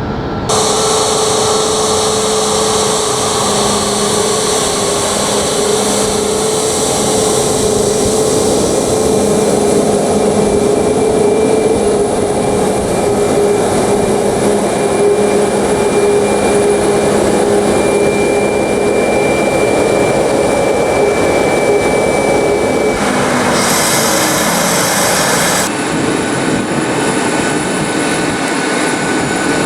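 Airbus A320neo airliner's jet engines running steadily on departure, a loud even rush with a high fan whine.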